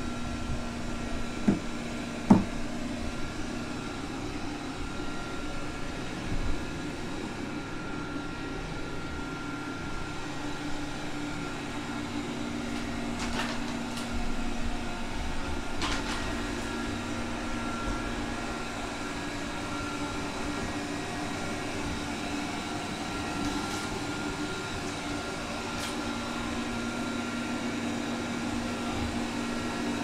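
Honiture Q5 robot vacuum running on its strong suction setting, a steady motor hum with a faint high whine over it. A few short clicks come and go as it works across the floor.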